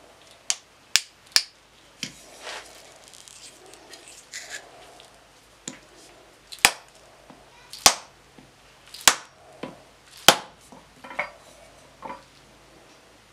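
Sharp hammer blows seating a new wooden handle in a steel hammer head on an anvil. There are three quick blows at first, then a steady series of heavier strikes about one a second, with light handling and scraping between them.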